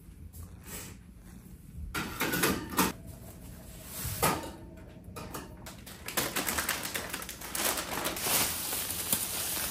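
Handling and prep sounds at a kitchen counter: a few sharp knocks about two and four seconds in, then from about six seconds a dense run of rapid clicks and rustling.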